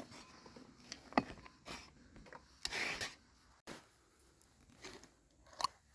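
Faint, scattered kitchen handling noises around freshly chopped onions: a few light taps and clicks, and a short rustle about three seconds in.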